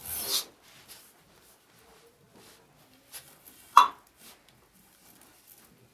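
Cord rustling and wooden parts of a Chilote loom being handled as the warp is tied tight: a short rustle at the start and a single sharp wooden knock with a brief ring a little under four seconds in.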